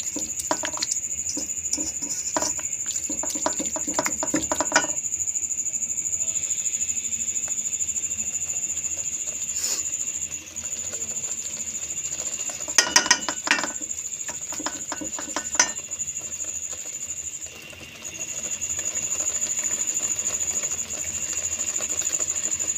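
A wooden spoon stirs and scrapes minced beef in a steel karahi, in clusters of scrapes and knocks through the first five seconds and again about thirteen seconds in. Under them runs a steady high-pitched whine.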